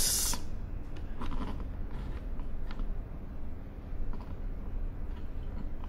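A few faint clicks and rustles of small electronic boards and cables being handled on a table, over a steady low room hum.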